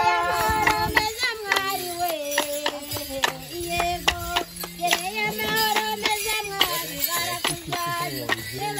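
A group singing a traditional Kinyarwanda song, the lines sliding between held notes, over steady hand clapping at about three claps a second.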